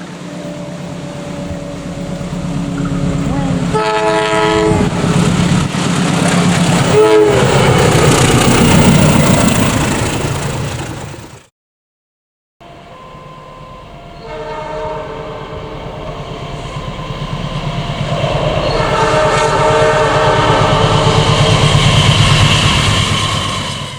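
Passing trains sounding their locomotive horns over the rumble of the train, in two separate passes: horn blasts about four and seven seconds in, then again from about fourteen seconds, with the train getting louder as it nears. The horns are drivers' friendly greetings to trackside train spotters.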